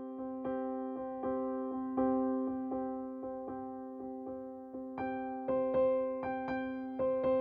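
Background music: a gentle electric piano playing repeated notes over a held chord at a steady pulse, with higher notes joining about five seconds in.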